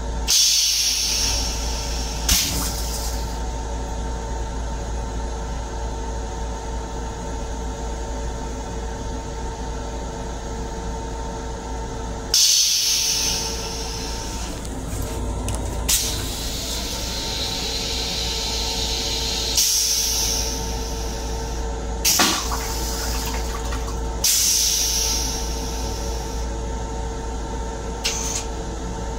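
Steady hum of an M7 railcar restroom, broken by about eight short bursts of hissing that come irregularly, the longest about a second and a half.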